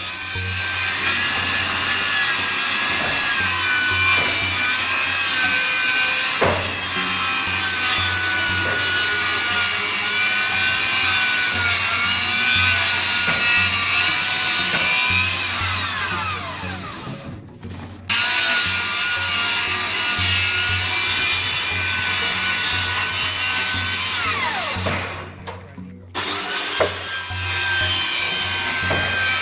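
Circular power saw ripping a timber tongue-and-groove ceiling board lengthwise, its motor whining steadily under load. Twice, about 16 and 25 seconds in, the blade winds down with a falling whine and the saw cuts out, then it starts up again about a second later.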